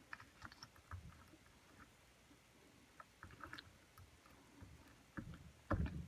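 Faint handling of a die-cut cardstock panel: soft paper rustles and light clicks as it is slid into place, then a few heavier taps near the end as hands press it flat.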